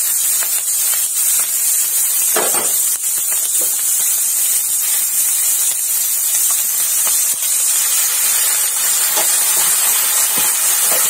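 Onion and green capsicum pieces sizzling in hot oil in a kadhai, a steady high hiss, with a few light scrapes of a perforated metal spatula.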